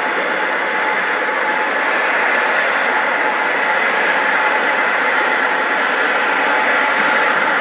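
Embraer ERJ regional jet's two rear-mounted turbofans running at taxi power: a steady jet rush with a thin high whine, growing a little louder about two seconds in.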